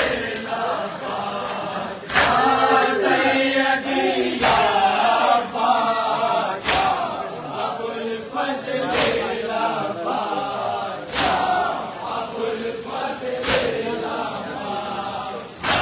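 A crowd of men chanting a Shia nauha (lament) in unison, with a loud collective chest-beat (matam) landing about every two and a quarter seconds in time with the chant.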